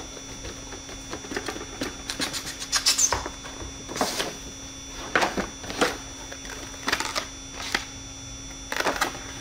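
Cardboard packaging being unboxed by hand: an inner box slid out of its printed sleeve, its flap opened and paper inserts handled, giving a series of scrapes, taps and rustles, with a quick run of clicks about three seconds in.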